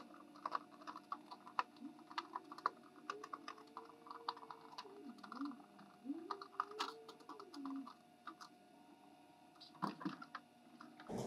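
Irregular light clicks and ticks of a screwdriver and small screws as the floor access plates of a light aircraft's cabin are unscrewed. A faint wavering tone rises and falls for several seconds in the middle.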